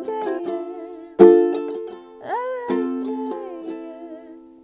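Ukulele strumming to a close: a last chord struck hard about a second in rings on and fades away, with a short wordless sung note over it about two seconds in.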